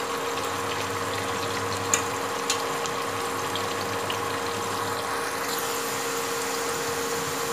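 Sliced onions frying in hot oil in a pressure cooker, a steady sizzle while they are still pale, with a steady hum underneath and a couple of light taps about two seconds in.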